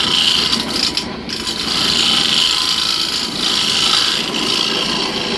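Hand-held turning tool cutting the face of a wooden disc spinning on a wood lathe: a rasping hiss of shavings coming off, over the steady run of the lathe. The hiss swells and eases, with a brief lull about a second in.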